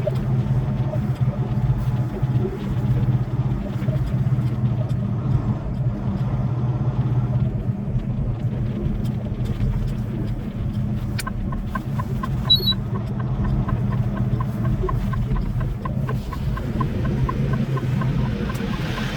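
Semi-truck engine running steadily while driving. From about halfway through, a turn signal clicks at about two a second, and a short high beep sounds once.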